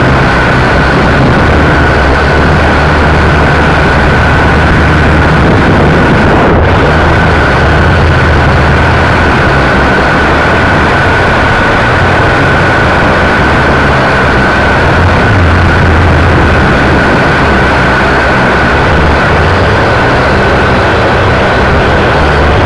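Quadcopter's electric motors and propellers, heard close up from its onboard camera: a loud, steady buzz with a constant high whine, over a rushing, fluctuating low rumble of air.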